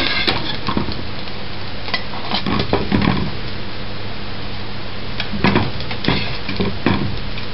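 Bread canapés with a meat topping frying in oil in a frying pan, a steady sizzle, with a metal fork scraping and knocking against the pan several times as the pieces are lifted out.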